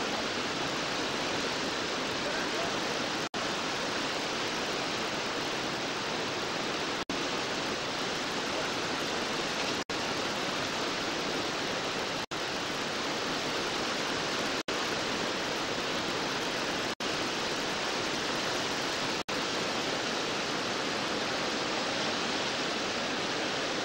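Steady rushing noise of a large whitewater rapid, picked up by a camcorder microphone. The sound cuts out for an instant roughly every two to three seconds.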